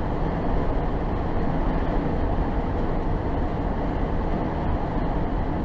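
Steady road noise heard from inside a moving car: a constant low drone of tyres and engine.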